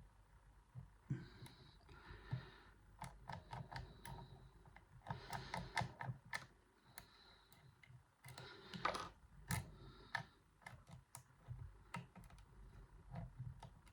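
Faint, irregular metallic clicks and short scrapes of a homemade pick working the sliders inside a Yuema-style slider lock.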